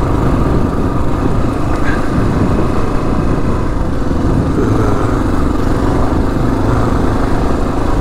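A 2022 Kawasaki KLR 650's single-cylinder engine running steadily through a Lexx slip-on exhaust as the bike is ridden off-road at an even pace.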